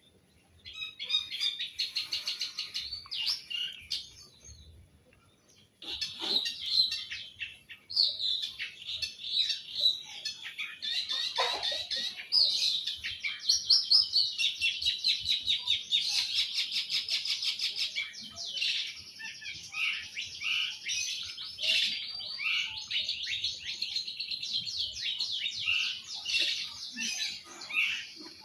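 Long-tailed shrike singing in full voice: a fast, chattering stream of high notes. It breaks off for a couple of seconds about four seconds in, then sings almost without pause.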